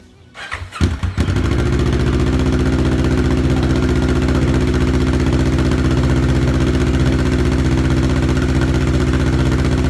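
A 2015 Kawasaki Ninja 650's parallel-twin engine, fitted with a Yoshimura RS-4 full exhaust, is started: the starter cranks briefly, the engine catches about a second in and settles into a steady idle.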